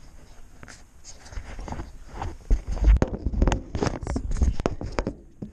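Close handling noise: a jacket sleeve rustling and brushing against the microphone, with irregular clicks, knocks and low bumps as hands reach over the fender into the engine bay. It gets busier and louder about two seconds in.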